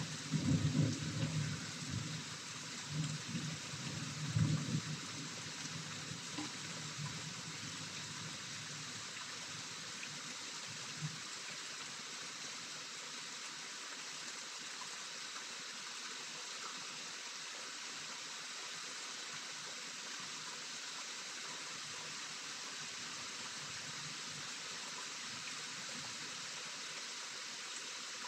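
Steady rain falling at night, an even hiss, with a low uneven rumble during the first few seconds that dies away.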